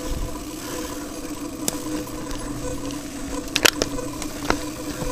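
Mountain bike rolling over a rocky dirt trail: a steady drone from the tyres and drivetrain, with a few sharp clicks and rattles from the bike and leash over the rocks.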